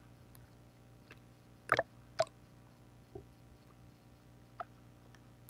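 Two sharp clicks about half a second apart, then a couple of fainter ticks, over a low steady hum.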